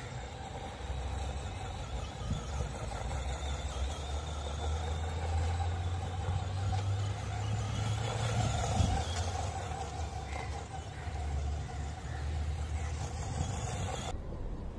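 4x4 RC car's electric motor and gears whining as it is driven fast over grass, over a steady low rumble. Near the end the high hiss drops away abruptly.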